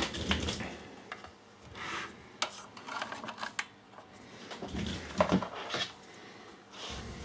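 Irregular small clicks, taps and rustles of hands handling wires, a crocodile-clip lead and parts on a plastic electronics kit board, with a cluster of sharper clicks about five seconds in.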